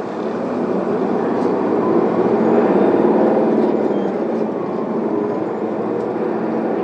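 Isuzu Erga city bus's diesel engine pulling away from a stop, growing louder over the first few seconds, then running steadily. Heard from inside the passenger cabin.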